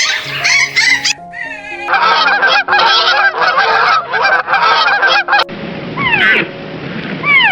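Geese honking in a rapid series of short calls, over steady background music. Near the end the honking stops and gives way to a noisier stretch with a few falling whistle-like glides.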